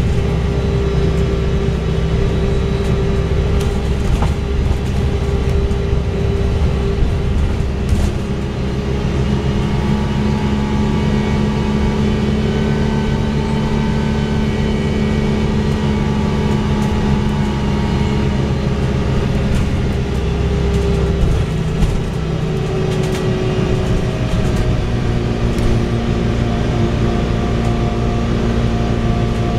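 A MAN diesel engine in an Alexander Dennis Enviro 300 single-deck bus revving high on a downhill run, heard from inside the passenger saloon. The engine note holds steady, then shifts in pitch about eight seconds in and again around twenty-two seconds in.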